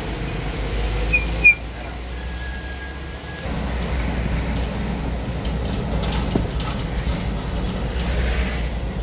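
Road traffic crawling through a jam, the low rumble of heavy vehicle engines, growing louder about three and a half seconds in. About a second and a half in come two short, shrill high peeps.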